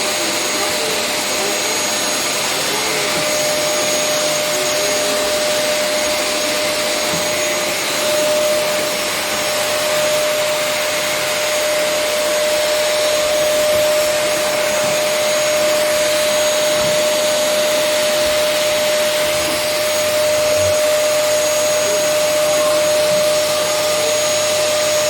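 Vacuum cleaner running steadily: an even rush of air with a steady motor whine.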